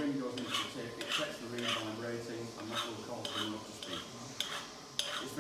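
Metal organ pipes clinking as they are handled on a workbench, a light clink every half second or so.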